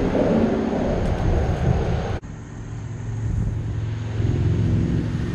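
Steady rumble of road traffic with a low engine hum, cut off abruptly about two seconds in and then continuing.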